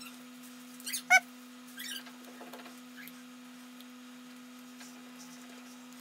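Screwdriver tightening wires into a small screw terminal: light scraping and handling noises, with one short, sharp squeak about a second in, over a faint steady hum.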